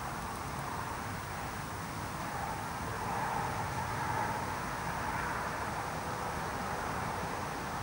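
Steady distant traffic hum, a little louder in the middle, with no sound from the feeding squirrel standing out.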